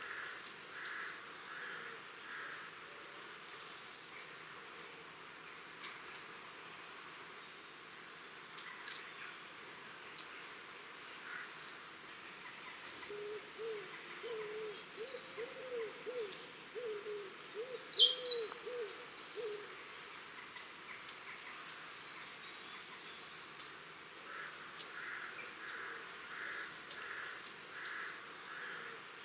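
A flock of long-tailed tits giving high, thin contact calls: short notes again and again. In the middle a lower, repeated cooing call runs for several seconds, and one louder sharp call comes about 18 seconds in.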